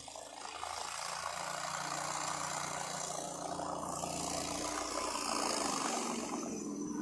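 Argo eight-wheel ATV's engine running steadily as the machine drives through deep snow, growing louder over the first second as it comes closer.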